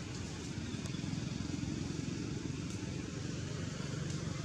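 Steady low rumble of a running engine, with a faint low hum in the second half and a few faint ticks.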